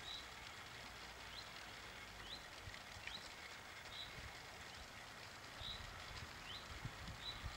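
Faint woodland birdsong: short chirps and quick rising notes repeating about once a second over a quiet outdoor hiss. A few faint low thumps come in between.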